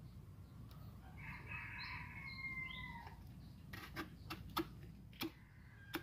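A rooster crowing faintly, one long call starting about a second in, followed by a few sharp clicks in the second half.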